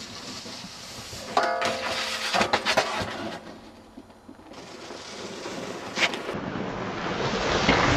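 Snowboards scraping and sliding over snow and rails, with short knocks and a brief squeal about a second and a half in. A rising hiss of board on snow and wind on the microphone builds towards the end.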